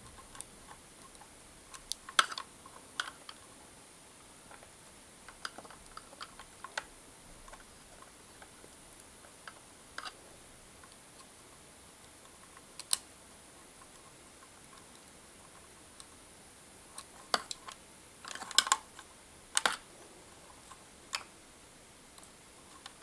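Sporadic small clicks and taps of a screwdriver working the screws of a plastic terminal block as mains cable wires are fastened into it, with a quick cluster of clicks late on.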